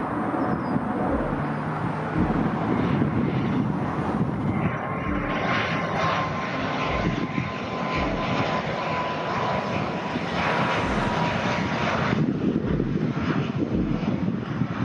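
Airbus A220 jet airliner's engines running as it climbs out after take-off, then, after a cut about five seconds in, an ATR 72-600 twin-turboprop airliner's engines and propellers running steadily on final approach.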